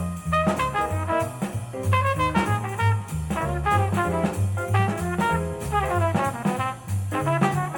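Swing jazz with brass and a steady bass line, played back through JBL 4307 studio monitor speakers.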